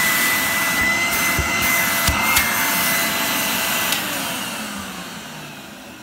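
A cream-and-brown Numatic Henry vacuum cleaner's motor running with a steady high whine. About four seconds in it is switched off and winds down. Its bearings run free, with no bearing noise.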